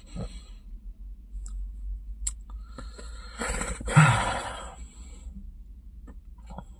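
A person chewing a burger, with small clicky mouth noises. About four seconds in there is a breathy exhale and a short low hum of enjoyment.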